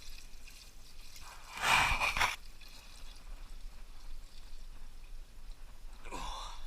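Gasoline being tipped out of a small engine into a container of drained oil: a short pour and splash about two seconds in, with faint dribbling otherwise.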